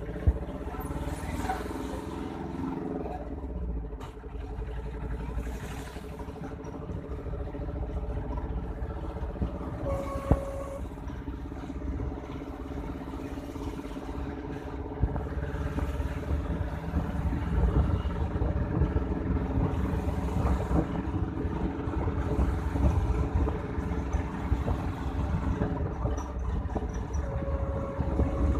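Small road vehicle running along a road, heard from on board: a steady motor hum over road rumble, with a short higher tone about ten seconds in.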